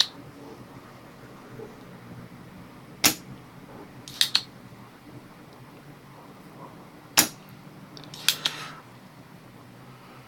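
Spring-loaded solder sucker (desoldering pump) clicking and snapping as it is cocked and fired to pull molten solder from the circuit board pads: a handful of sharp clicks a few seconds apart, some in quick pairs.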